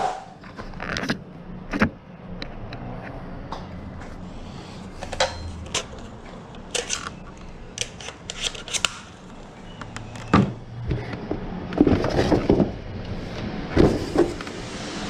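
Unpacking noises: scattered clicks, taps and rustles of packaging and parts being handled and lifted out of a box, with a run of louder knocks and rustling near the end.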